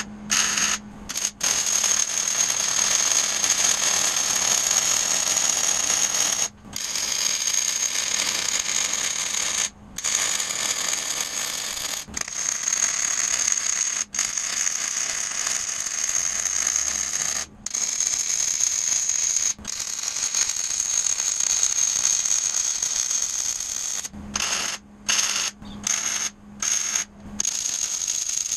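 MIG welder welding steel unistrut channel: the arc crackles steadily in long runs, broken by several short stops between beads, with a quick series of short tack welds near the end.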